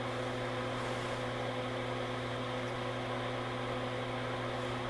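Steady machine hum: a low drone with a few fixed higher tones, unchanging.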